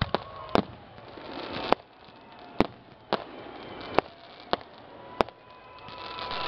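Fireworks display: about eight sharp bangs of shells bursting, with crackling that builds toward the end. A steady whistle joins in near the end.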